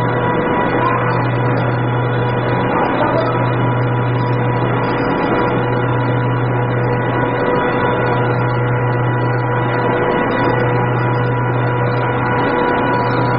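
Steady running noise of pulp-moulding plant machinery, with a constant whine and a low hum that dips briefly about every two and a half seconds.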